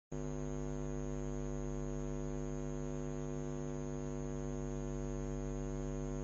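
Steady electrical mains hum with many even overtones, unchanging in pitch and level.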